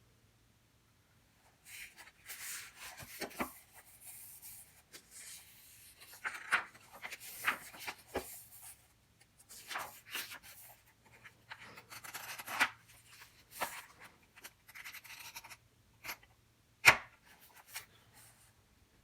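Paper being handled: intermittent rustling and scratching, with several light taps and one sharp click near the end.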